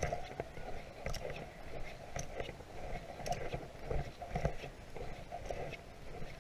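Footsteps crunching on a gravel road at a walking pace, about two steps a second.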